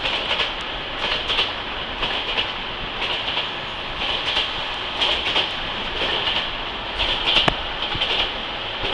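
Passenger train running along the line, heard from on board: a steady rolling rumble and hiss, with repeated clacks of the wheels over rail joints at an uneven rhythm.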